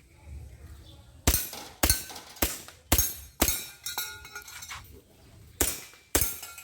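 Airsoft pistol firing a string of sharp shots about half a second apart, each with a short metallic ring; after six or so shots there is a pause of over a second, then more shots near the end.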